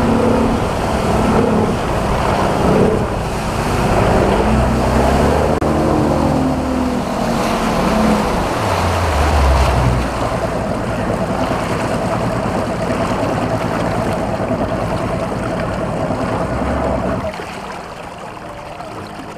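Outboard motor of a bass boat running at speed, with rushing wind and water. The engine note holds steady with a whine, then eases off near the end as the boat slows.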